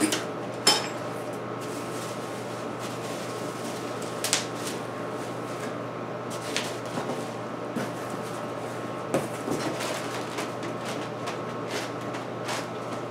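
Cardboard box and plastic packaging handled while a chainsaw is unpacked: scattered knocks, clicks and rustles, the sharpest a knock under a second in, over a steady low hum.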